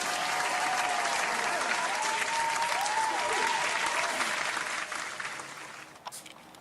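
Crowd applause with a few cheering voices, starting abruptly and fading out after about five seconds.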